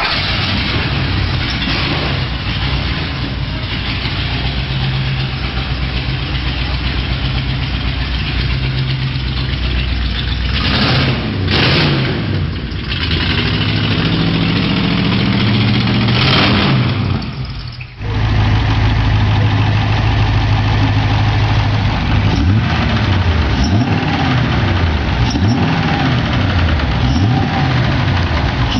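Race car engines running and revving, their pitch rising and falling again and again. About 18 seconds in, the sound cuts abruptly to a different engine, which keeps revving up and down.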